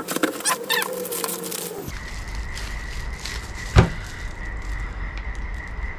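Parts and their packaging being handled: crinkling and small clicks, then one sharp knock a little before four seconds in, over a steady background hum.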